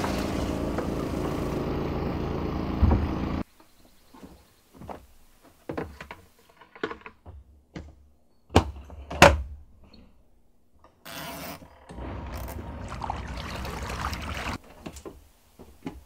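Panda XPB45 twin-tub washing machine's motor running steadily, cutting off suddenly about three and a half seconds in. Then scattered knocks and thumps, two loud ones about nine seconds in, as wet clothes are handled into the spin basket, and a few more seconds of steady machine running near the end.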